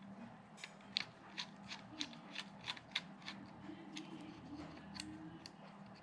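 Small screwdriver backing out a tiny screw from a 2.5-inch laptop hard drive's metal mounting bracket: a run of faint, light clicks about three a second as the driver is turned and re-gripped.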